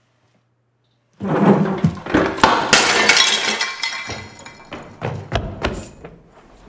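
A sudden loud crash about a second in, breaking glass with clattering debris that dies away over the next few seconds, followed by scattered knocks.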